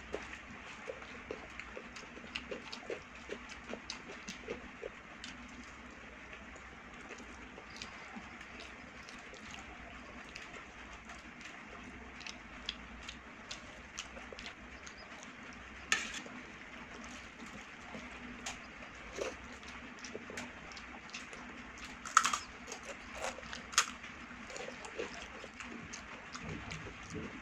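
Eating by hand from a steel plate: fingers squish and mix rice with dal and vegetable curry, along with chewing. There are many small wet clicks and smacks, and a few sharper clicks about two-thirds of the way through.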